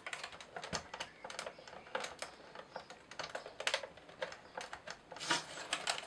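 Irregular light clicks and taps of laser-cut plywood model-kit parts being handled and pressed together on the wooden hurdy-gurdy body.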